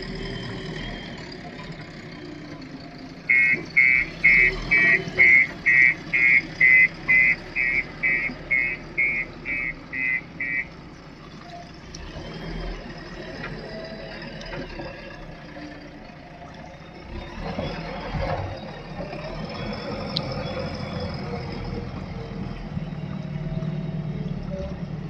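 Diesel engine of a JCB 3DX backhoe loader running steadily. Its reversing alarm beeps loudly about twice a second for some seven seconds, starting a few seconds in. A short clank comes later.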